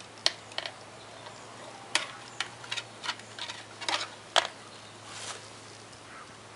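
Irregular clicks and taps from small parts being handled during work on a string trimmer, over a steady low hum.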